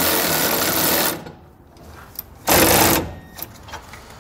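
Power tool spinning a 9/16 socket to run down and tighten the flange nuts on a U-bolt around a leaf spring. It runs steadily, stops about a second in, then runs again briefly about two and a half seconds in.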